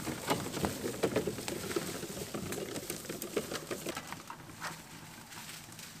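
Dry fallen leaves and twigs crackling and rustling under the tyres of an electric trike and its bicycle trailer as they roll over the forest floor. It is an irregular patter of small clicks that grows thinner and quieter about four seconds in.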